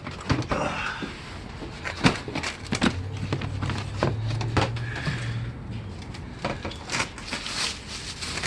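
Boxes and stored household goods being rummaged through and handled: a run of knocks, clatters and rustles. A low hum sounds for a couple of seconds in the middle.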